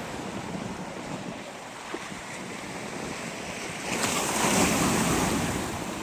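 Ocean surf pounding the shore, with wind buffeting the microphone. About four seconds in, a wave breaks in a louder rushing crash that eases off near the end.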